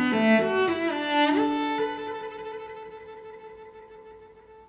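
Background instrumental music on strings: a phrase of notes ends in a long held chord that slowly fades out.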